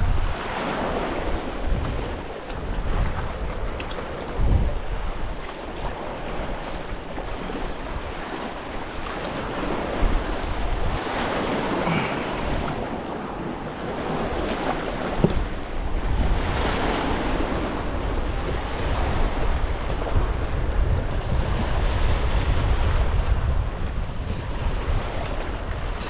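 Sea wind buffeting the microphone over open water washing around a small fishing boat, the water noise swelling and easing every few seconds.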